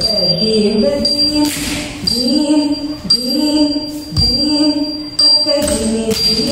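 Bharatanatyam nattuvangam: a woman singing the kauthuvam in phrases about a second long, over the ringing of small hand cymbals (talam) struck in time. Bare feet stamp on the wooden floor a couple of times past the middle.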